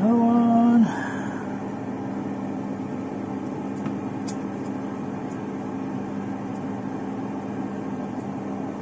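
Steady low electrical hum with a whirring noise bed from workbench equipment. A short hummed 'mm' from a person comes right at the start, and a few faint clicks follow around the middle.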